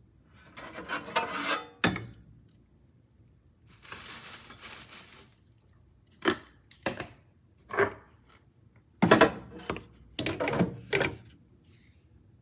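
A string of separate clanks and knocks from objects being handled: a sharp click near the start, a brief rustle, then several clatters in the second half, like metal parts or trays being moved.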